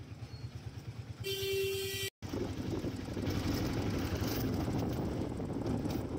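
A vehicle horn blows once, a steady tone lasting about a second, over running engine and road noise. The sound cuts out for an instant, then the engine and road noise come back louder.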